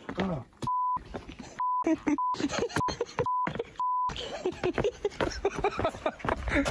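Censor bleeps: a steady single-pitch tone dropped in six times over about three and a half seconds, blanking out swearing, with snatches of speech between.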